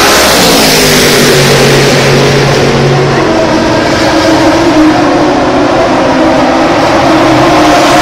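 Super GT race cars running at speed past the grandstand, one after another. A car's engine note drops in pitch as it goes by near the start, and the next car's engine rises as it approaches near the end.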